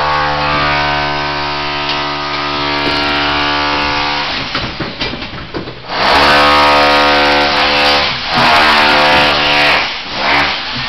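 A motor running with a steady pitched hum. It eases off about five seconds in and starts up again louder and harsher about six seconds in.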